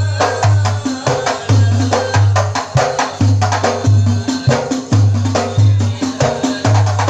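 Hadroh percussion ensemble playing an instrumental passage: hand-struck frame drums in a fast, dense rhythm over a deep bass drum beating about twice a second.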